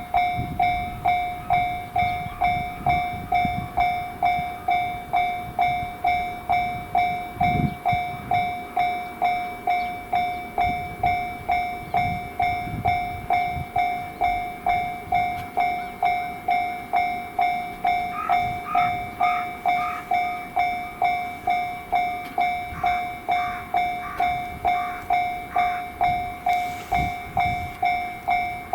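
Japanese railway level-crossing warning bell clanging steadily at about two strikes a second, over the rumble of a train passing. A second, higher-pitched bell rings in short runs in the latter half.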